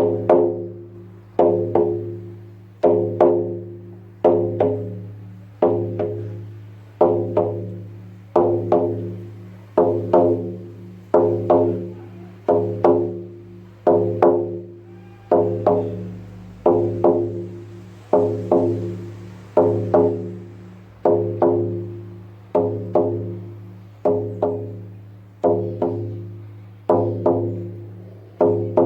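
Lakota healing drum struck in a slow, steady single beat, about one stroke every one and a half seconds, each stroke ringing out and fading before the next, over a steady low hum.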